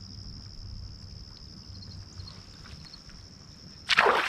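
A hooked smallmouth bass splashing at the water's surface: one sudden loud splash near the end, over a steady faint high whine.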